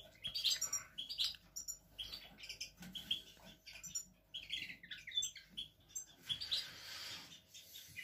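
Several small caged finches chirping, with many short, high calls overlapping and scattered throughout.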